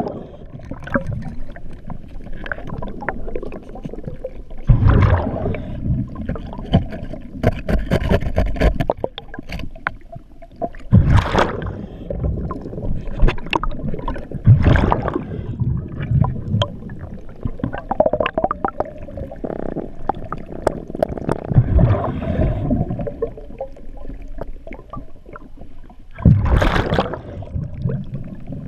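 A scuba diver's regulator breathing underwater: bursts of exhaled bubbles gurgling about every three to four seconds over a low rumble.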